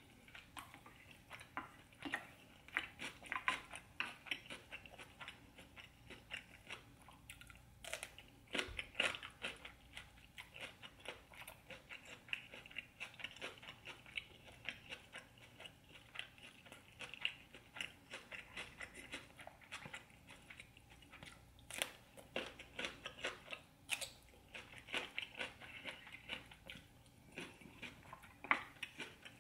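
Close-miked eating sounds: crisp bites into raw cucumber slices and steady chewing, a long string of sharp crunches and wet mouth clicks.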